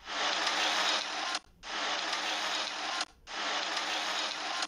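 Aerosol insecticide (mosquito spray) can hissing in three long sprays of about a second and a half each, with short breaks between.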